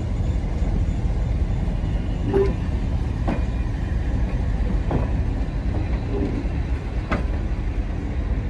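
The wheels of Class 411 (3CEP) electric multiple unit coaches rolling slowly past on the rails, with a steady low rumble. A sharp knock comes every second or two as the wheels cross rail joints.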